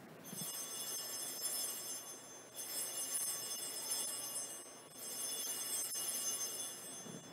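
Altar bells rung three times at the elevation of the chalice, marking the consecration. Each ring is a high, shimmering peal lasting about two seconds.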